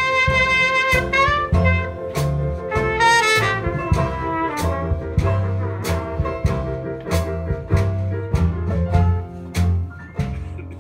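Traditional New Orleans jazz band playing an instrumental passage: horns holding long notes over banjo, bass and drums for the first few seconds, then the rhythm section carrying a steady beat with a walking bass.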